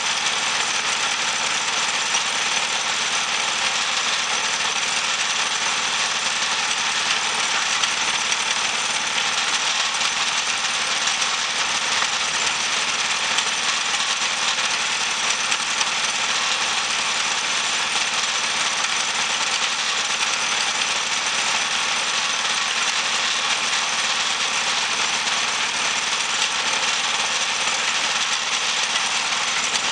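Homemade pusher band sawmill running steadily, its band blade sawing a slab off a dead ash log.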